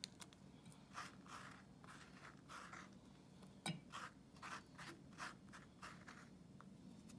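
Faint scratching and rubbing in short, irregular strokes, with one sharper click a little after halfway.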